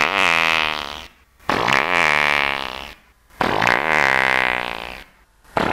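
A recorded fart played back as a chain of copies, each slowed further by a speed change in Audacity, so it comes out as drawn-out, low, pitched blasts. Three blasts with short gaps between them, and a fourth starts near the end; each runs a little longer than the one before.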